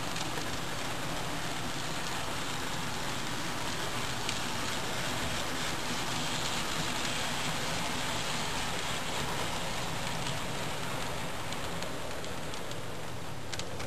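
HO scale model grain train's covered hopper cars rolling along the track: a steady rushing noise with a few faint clicks.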